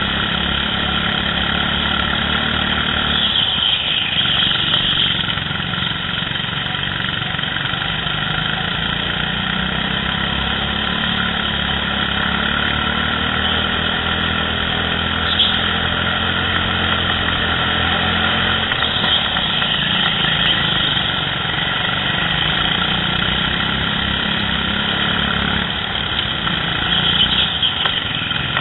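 Go-kart engines running at racing speed, heard from the driver's helmet with a steady buzzing rasp. Their pitch rises and falls with the throttle through the corners, with one short click about fifteen seconds in.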